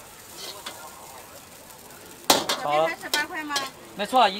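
Metal spatula stirring and scraping fried rice in a wok, with a faint sizzle. About two seconds in there is a single sharp metal clank.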